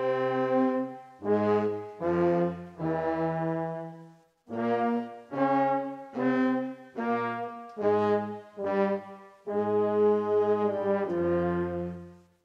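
Brass band playing a slow march: held chords over low bass notes, moving note by note with short gaps, with a brief break about four seconds in and a stop near the end.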